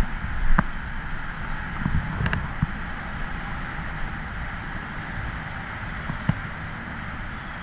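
Steady outdoor rumble and hiss of wind on the camera's microphone, with a few small clicks and taps as hands handle the fishing rod and a soft-plastic lure.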